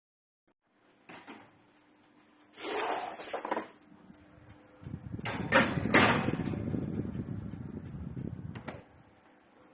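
Oven door and rack being handled: a scraping rush, then about four seconds of clunks and rattling with a low rumble, ending in a sharp click as the door shuts.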